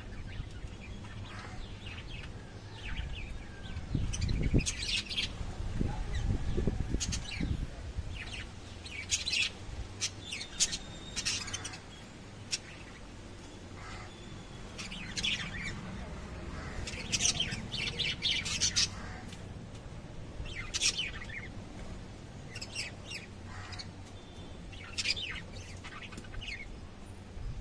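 Lovebirds chirping: short, sharp high calls in clusters every second or so, with some low thumps about four to seven seconds in.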